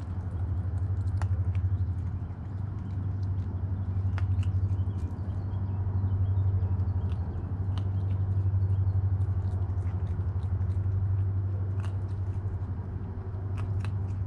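A steady low hum runs underneath, the loudest sound throughout. Over it come scattered sharp clicks and crunches of raccoons biting and chewing dry food pellets.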